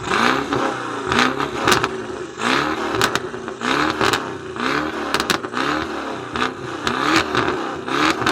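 BMW engine revved hard over and over, its pitch climbing and dropping back about once a second, with sharp cracks from the exhaust between the revs.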